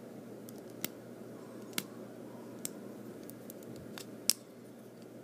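Plastic Lego bricks clicking as they are handled and pulled apart or fitted, about five sharp separate clicks, the loudest near the end, over a steady low hum.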